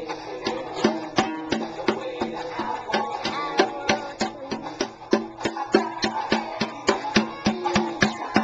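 Music with a steady, quick beat of sharp percussive hits, about three a second, over held pitched notes.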